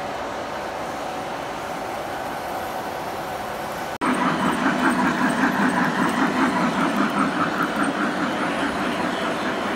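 Model trains running on a layout: a steady rumble of wheels on track. About four seconds in there is an abrupt cut to a louder rumble with a rapid even pulse, about four a second, easing off toward the end, as a Nickel Plate Road diesel switcher model passes close.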